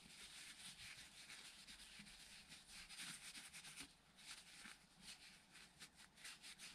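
Faint rubbing and scraping, with a quick run of light ticks from about four seconds in.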